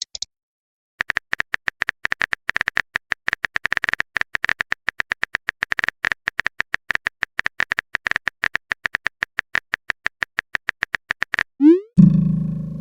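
Rapid clicks of a phone on-screen keyboard being typed on, about five a second and uneven. Near the end comes a quick rising swoosh of a message being sent, then a short low notification tone that fades.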